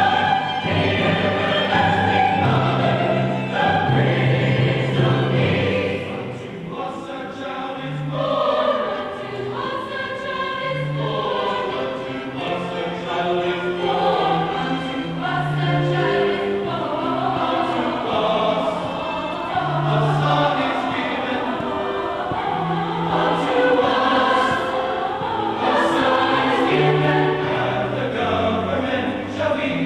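A choir singing, with held low notes under the voices.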